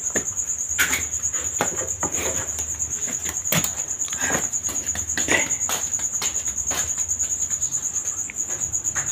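A cricket trilling steadily at one high pitch, with a few light knocks and clicks scattered through.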